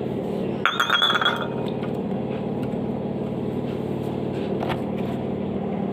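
A short ringing clink of a hard vessel or utensil about a second in, over a steady low hum.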